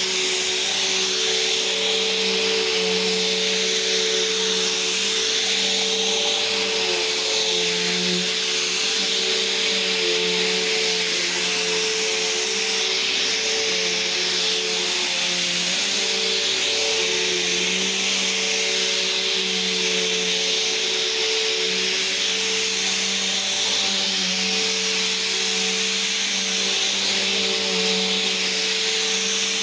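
Vacuum cleaner running steadily: a constant motor whine and rushing air hiss, its pitch wavering slightly as it is pushed about.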